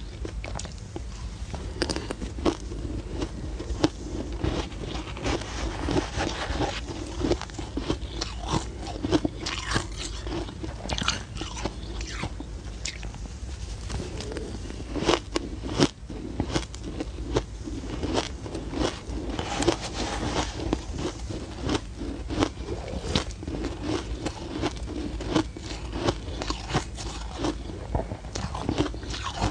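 Close-miked crunching and chewing of soft, crumbly ice, a dense run of small crackling crunches as mouthfuls are bitten and chewed.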